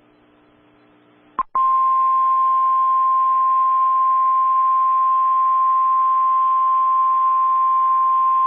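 NOAA Weather Radio warning alarm tone: a single steady high tone that comes in about a second and a half in, after a short blip, and holds unbroken. It marks a warning-level alert about to be read. Before it there is only a faint hum from the radio.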